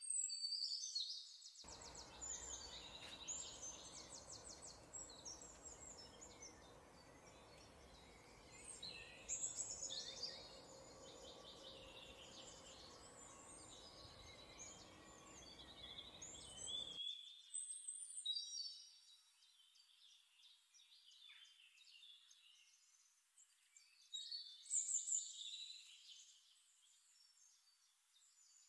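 Songbirds chirping and trilling, faint, with a soft hiss underneath for about the first half.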